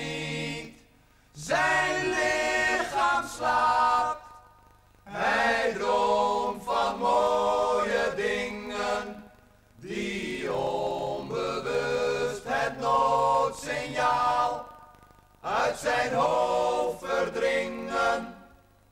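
A group of men singing together a cappella, in phrases broken by short pauses. The singing stops just before the end.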